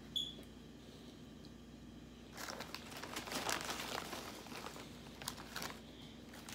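Crinkling and rustling of a plastic potato chip bag and paper napkin being handled while eating. It starts about two seconds in and lasts around three seconds.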